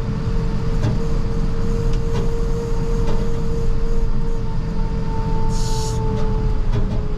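International TerraStar plow truck driving, its engine running as a low rumble under a steady whine. A short hiss about five and a half seconds in.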